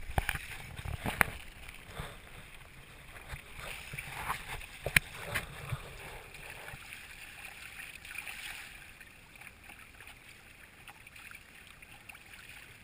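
Water splashing and gurgling along the hull of a Hobie Tandem Island sailing kayak under way, with a few sharp knocks in the first five seconds. The water noise eases off about seven seconds in.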